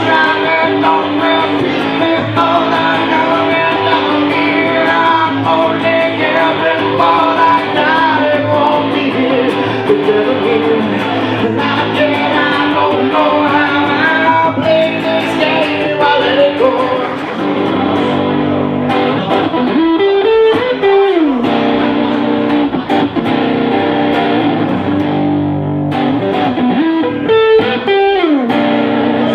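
Live blues-rock music led by electric guitar. Twice in the second half a note glides up and falls back down.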